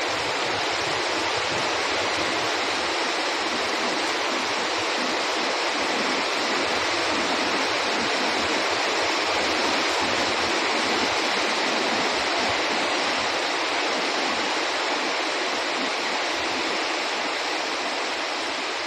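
Heavy rain pouring down steadily, an even, dense hiss of rainfall on the garden, paving and roof.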